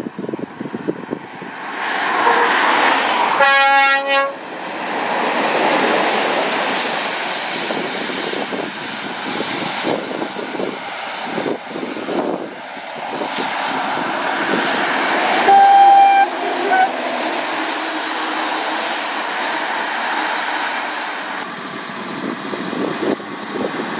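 Lorries passing on a wet road, their tyres hissing through standing water. A horn blast lasting about a second sounds a few seconds in, and a shorter, higher toot in two parts comes just past halfway.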